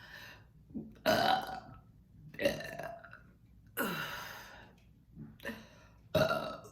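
A woman burping in a run of short separate burps, about four of them a second or so apart, with a fainter one near the end. They come from carbonated kombucha, and she is pushing them up with effort.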